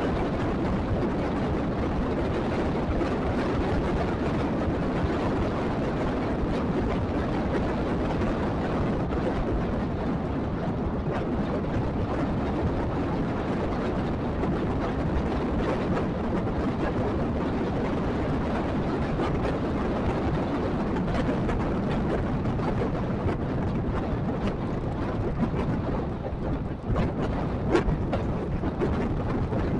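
Steady rumble of wind and road noise from a camera riding along a paved road, with passing motorbike traffic. It turns uneven near the end, with a few louder knocks.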